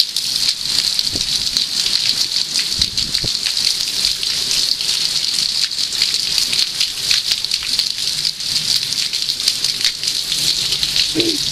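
Heavy rain falling steadily: a dense hiss of drops hitting wet paving and puddles.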